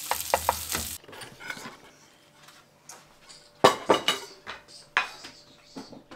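Crumbed Murray cod fillets sizzling in butter in a frying pan, with a few clicks of a spatula on the pan; the sizzle cuts off suddenly about a second in. Then come several separate sharp clinks and knocks of cutlery and dishes.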